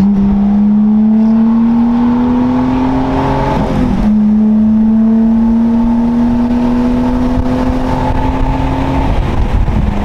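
Nissan Laurel's turbocharged RB20DET inline-six accelerating hard under load, heard from inside the cabin. The engine note climbs steadily, drops at an upshift about four seconds in, then climbs again to another shift near the end. It pulls cleanly on its new ignition coils, with no misfire.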